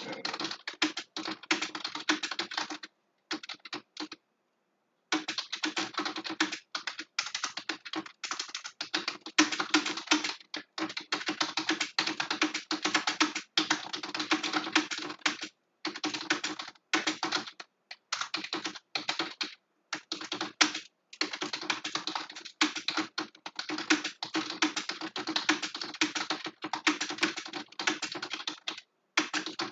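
Fast typing on a computer keyboard: a dense stream of keystrokes broken by brief pauses, the longest about two seconds a few seconds in.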